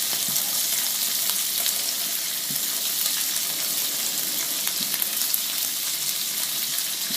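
Paneer cubes frying in hot oil in a pan: a steady sizzle with small scattered crackles.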